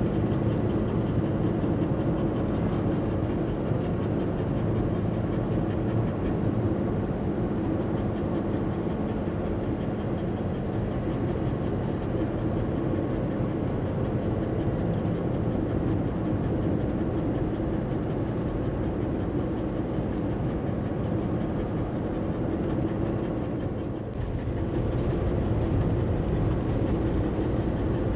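Steady road noise and engine drone heard inside a motorhome's cab while it drives along at a constant speed, with a brief dip in level near the end.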